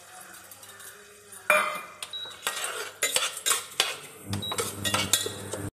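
Steel ladle stirring and scraping rice roasting in ghee inside a steel pressure cooker, with repeated metal-on-metal clinks and scrapes from about a second and a half in. Before that there is only a faint sizzle.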